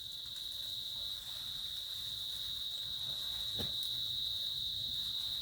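Crickets chirring in one steady, unbroken high-pitched drone.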